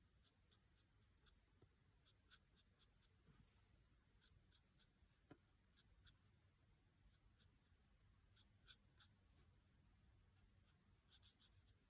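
Faint, irregular short scratches and taps of a marker tip colouring on card, with a few louder clusters of strokes near the end.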